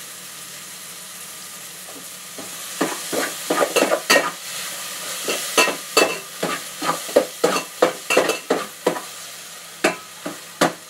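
Canned sardines sautéing with garlic, onion and tomato in a pan, a steady sizzle. From about three seconds in, a utensil stirring the pan scrapes and knocks against it in quick irregular strokes, several a second.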